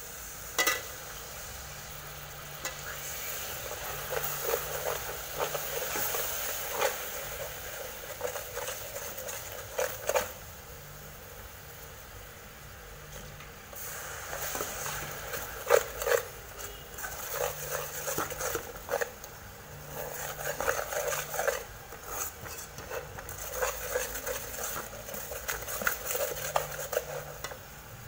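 Brown garlic sauce sizzling and bubbling in an aluminium pan as water is poured into it, with a metal ladle clinking and scraping against the pan again and again.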